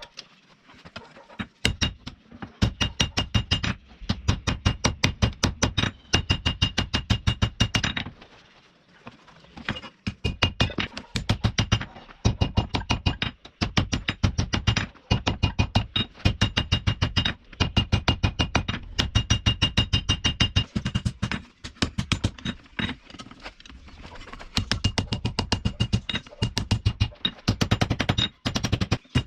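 Hammer blows on steel at an anvil, in fast runs of several strikes a second with short pauses between runs; the metal rings with each strike.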